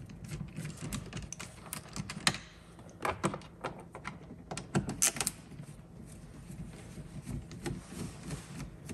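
Phillips screwdriver backing screws out of the plastic cup holder trim in a BMW E92 M3 dashboard: irregular small clicks and ticks, with louder clusters about three and five seconds in.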